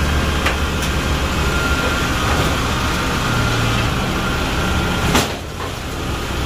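Kubota DC-70G combine harvester's diesel engine running steadily as the tracked machine climbs the loading ramps onto a truck bed, with one brief sharp sound about five seconds in.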